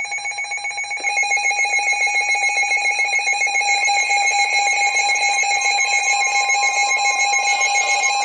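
Emergency alert attention tone: a loud, steady electronic alarm tone with a fast pulsing flutter, a second higher tone joining about a second in. It is the attention signal that comes before a severe thunderstorm warning broadcast.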